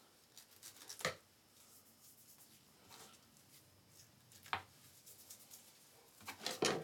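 Small knife trimming skin off a skinned rabbit's back leg on a plastic cutting board: a few faint, short knocks and scrapes, one about a second in, another past the middle and a quick cluster near the end.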